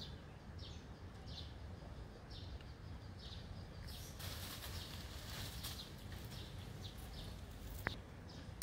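Outdoor ambience: a steady low rumble under a short, high chirp that repeats at even spacing a little more than once a second. A brief hissing rustle comes around the middle, and a single sharp click near the end.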